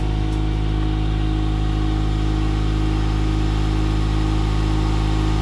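Tractor-loader-backhoe engine running steadily at an even speed.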